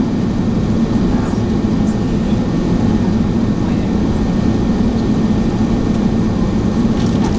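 Steady in-cabin drone of an Airbus A380 in flight on approach, from a window seat beside the wing: jet engine noise and rushing air blended into an even low roar.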